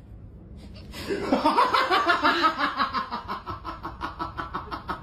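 A person laughing hard in quick, repeated bursts, starting about a second in and slowly weakening.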